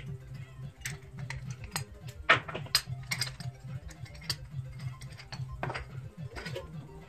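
Irregular sharp clicks and knocks as pliers and the parts of an LED bulb are handled and set down on a desk, over background music.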